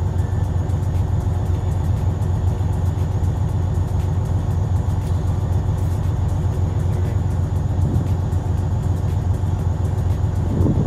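Semi truck's diesel engine running steadily at raised idle, heard from inside the cab, its RPM held up to build air brake pressure to 120–125 PSI.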